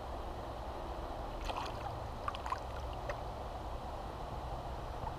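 Steady rush of flowing river water with a low rumble, and a few small splashes and clicks near the middle as a trout is handled and unhooked in a wooden landing net.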